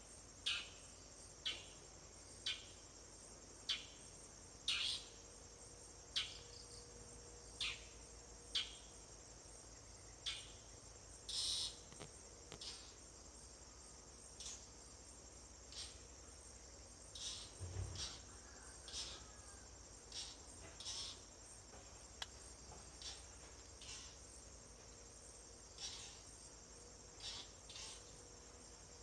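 A steady high-pitched chorus of crickets, with short sharp chirps recurring about once a second at first and more irregularly later on.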